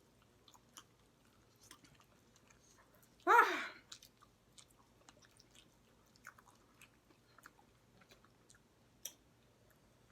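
Chewing and biting on chicken legs, a scatter of faint wet mouth clicks. About three seconds in, one brief pitched vocal sound from an eater cuts in, the loudest moment.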